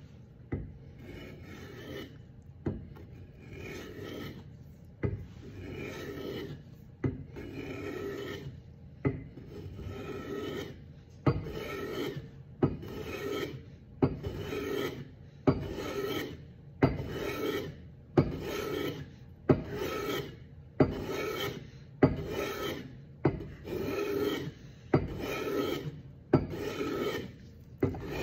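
Small hand plane taking repeated strokes along a glued-up wooden blank: each pass opens with a sharp click as the blade bites and runs on as a short rasping swish of a shaving being cut. The strokes come roughly once a second at first and quicken to a little under one a second after about ten seconds.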